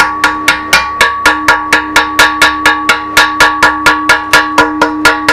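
Hammer striking the steel digger bucket in rapid blows, about five a second, the steel ringing on between strikes.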